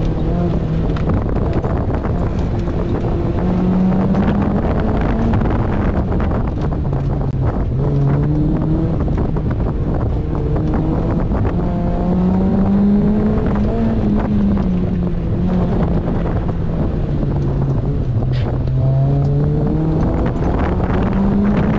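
Mazda MX-5 Miata's four-cylinder engine pulling through an autocross course, its revs swelling and dropping again and again between corners, heard from the open cockpit with wind buffeting.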